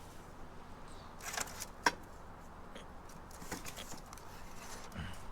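Discarded household items being handled and shifted in a junk pile: scattered light clicks and rattles, the sharpest one about two seconds in.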